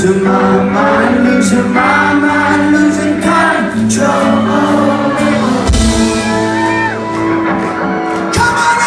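Live rock band playing in concert, with a lead vocal singing over the band and the echo of a large hall.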